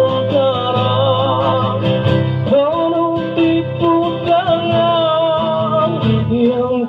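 A man singing a slow song into a microphone while strumming an acoustic guitar, heard through a small amplifier.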